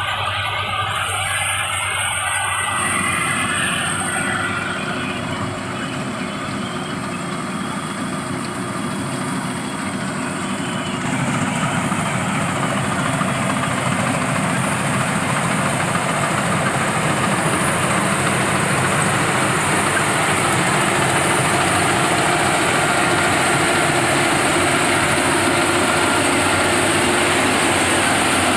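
Engine of a rice-harvesting machine running steadily with a dense mechanical noise, changing in character about three seconds in and growing louder about eleven seconds in.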